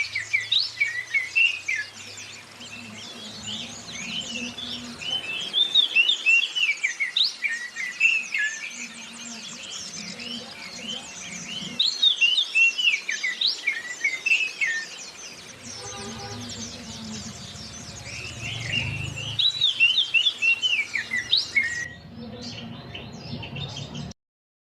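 Recorded songbird track of oriental magpie-robin (kacer) song mixed with white-eye (zosterops) chatter, used as a lure to get caged birds singing. Rapid runs of high chirps come in bursts every few seconds, and the track cuts off suddenly near the end.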